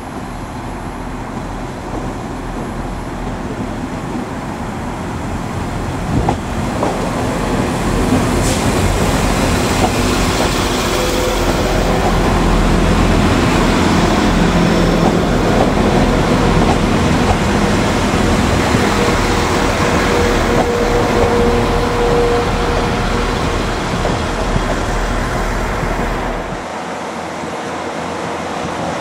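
NIR 4000-class diesel multiple units running into the station, a steady engine and wheel rumble that grows louder toward the middle. A thin steady squeal comes in about two-thirds through, and the deep rumble drops away near the end.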